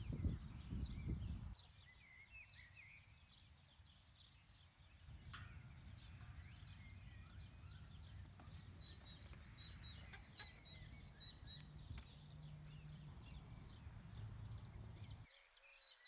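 Faint small birds chirping and calling, with one bird repeating a short high note over and over near the middle. A low rumble is loudest in the first second and a half.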